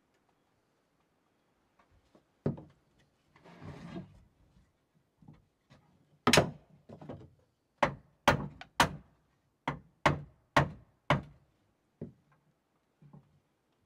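Hammer driving hand-forged square nails into hardwood boards. There is one blow, then a short scraping shuffle, then from about six seconds in a run of about eight sharp blows roughly half a second apart, ending in a couple of lighter taps.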